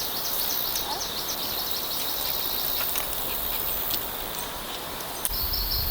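Forest ambience: a steady hiss with trains of rapid, high-pitched chirps that pause about three and a half seconds in and start again near the end.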